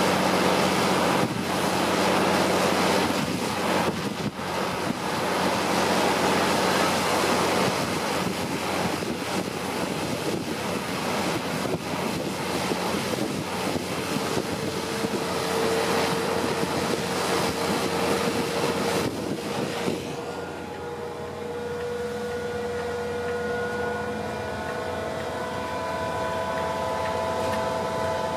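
Wind buffeting the microphone at the open cab window of a hybrid-converted V 100 shunting locomotive, over the locomotive's steady hum. About twenty seconds in the wind noise drops away, leaving the cab sound of the drive, with several whines rising slowly in pitch as it gathers speed.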